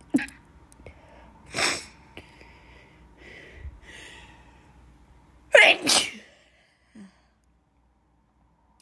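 A woman sneezing from a dust allergy: one sneeze about one and a half seconds in, then a louder double sneeze about five and a half seconds in, with breathy intakes of breath between them.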